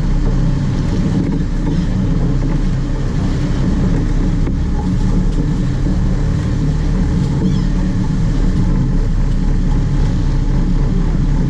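Sport-fishing boat's engine running steadily, a continuous low rumble.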